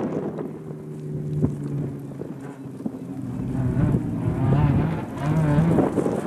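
Rally car's engine revving as it drives through a dirt stage, its pitch rising and falling as the driver works the throttle, louder in the second half. Wind buffets the microphone.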